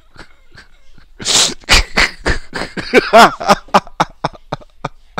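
A man laughing hard, a fast run of short pitched 'ha' bursts about four to five a second, with loud breathy gasps and a few low thumps about a second in.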